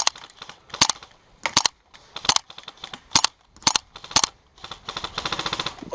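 Gas-blowback MP7 airsoft SMG firing a string of single shots, each a sharp crack with the bolt's clack, then a quick rapid run of shots near the end.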